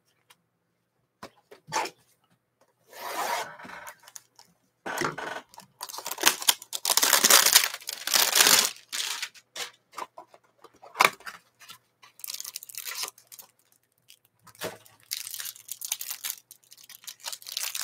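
A cardboard hanger box of trading cards being torn open, then the plastic wrapping around the card stack crinkling in gloved hands. The tearing and rustling come in irregular bursts, loudest about seven to nine seconds in.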